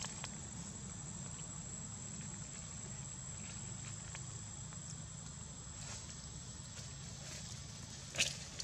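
Outdoor ambience: a steady high-pitched insect drone over a low rumble, with a few faint crackles and one sharper click near the end.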